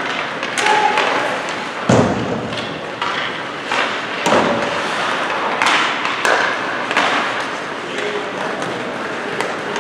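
Ice hockey rink noise: skates scraping the ice under a steady hubbub, a heavy thud against the boards about two seconds in, further sharper knocks, and distant shouting voices.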